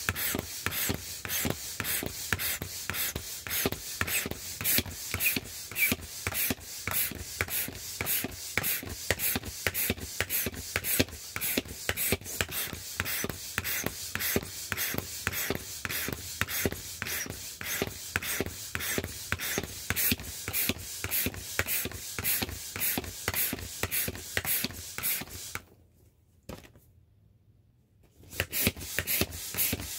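Manual air pump inflating a vinyl inflatable rooster: rapid, even pump strokes, each a short rush of air, about two to three a second. The pumping stops for about two seconds near the end, then starts again.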